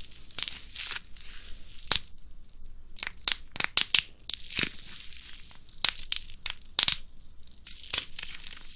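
Bubble wrap being squeezed by hand: a string of sharp, irregular pops as the bubbles burst, with a quick cluster of pops around the middle, and the plastic sheet crinkling between them.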